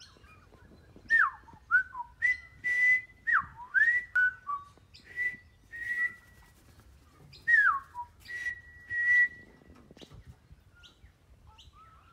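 A person whistling close by: a run of clear notes that swoop down from high to low, mixed with notes held steady on one pitch, with breath audible at their starts. Near the end only faint, short, high chirps remain.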